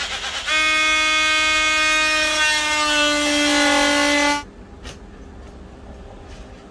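Cordless drill running under load in plywood flooring: a rough start, then a steady whine for about four seconds that drops slightly in pitch partway through, stopping abruptly. A single click follows about half a second later.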